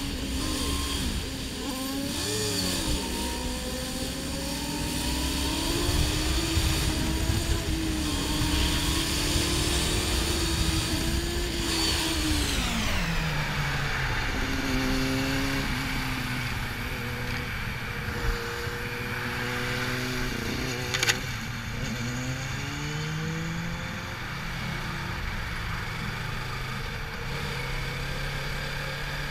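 Sport motorcycle engine running in slow highway traffic, its pitch rising and easing off. About twelve seconds in the engine note drops steeply as the bike slows, then runs lower with small rises. Wind rushes throughout, and a single sharp click comes about three quarters of the way through.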